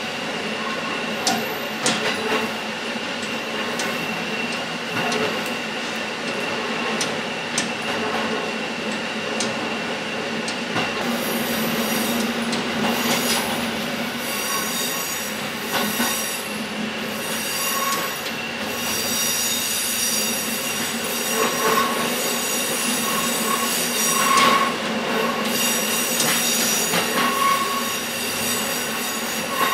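KiHa 11 diesel railcar running along the line, heard from inside the car: steady running noise with occasional sharp clicks from the wheels over the rails. From about a third of the way in, the wheels squeal on and off.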